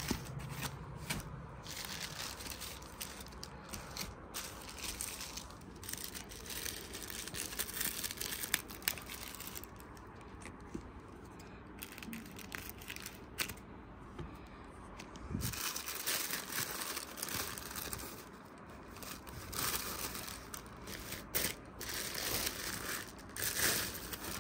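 Packaging handled by hand as a boxed speaker is taken out and unwrapped: irregular rustles with a few short, sharp clicks.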